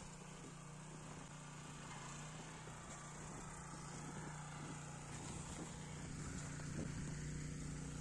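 An engine running steadily with a low hum, slowly growing louder.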